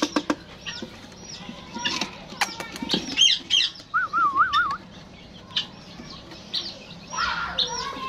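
Small caged parrots chirping over and over in quick downward-sweeping calls, with wing flutters and sharp clicks. A warbling call rises and falls several times about four seconds in, and the calling grows denser near the end.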